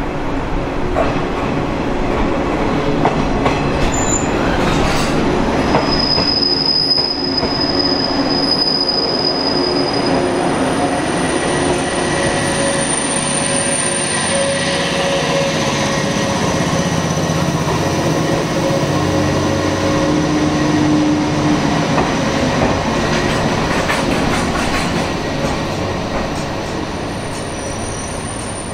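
JNR 115-series electric multiple unit running slowly past along the platform, its wheels giving off thin high-pitched squeals over the steady rumble. The sound fades over the last few seconds as the train moves away.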